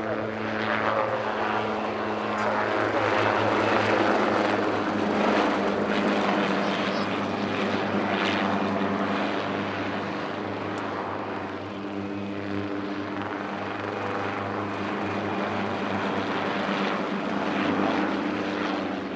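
Hughes 269 / HKP 5B (Schweizer 269C) light helicopter in flight: its four-cylinder piston engine and rotors make a steady hum and beat. It grows loudest about four seconds in, then eases off a little.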